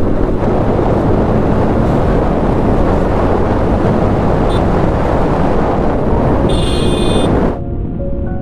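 Heavy wind rushing over the camera microphone of a motorcycle riding at speed, with the bike's running under it. Shortly before the end a brief high tone sounds, then the road noise cuts off abruptly and background music with held notes takes over.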